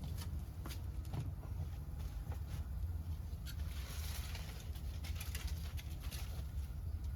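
Wood fire crackling, with scattered sharp pops and a brief hiss about four seconds in.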